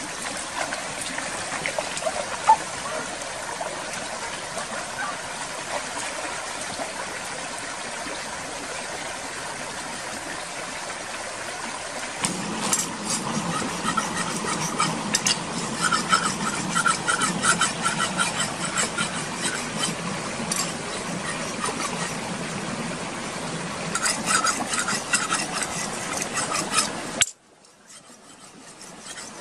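Stream water running over rocks, then quick rhythmic scraping strokes at green coconuts, coming in two runs, before the sound cuts off sharply near the end.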